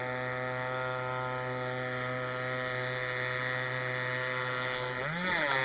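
Small engine of a homemade motorized surfboard running steadily under way, with a brief rise and fall in engine speed near the end.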